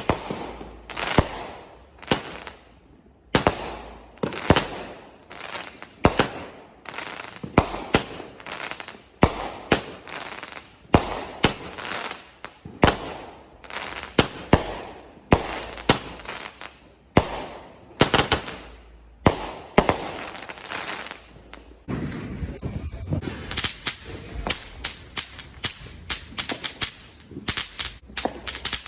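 Consumer aerial fireworks firing shot after shot: a sharp bang every half to one second, each trailing off. About 22 seconds in they give way to a denser, faster run of crackling pops.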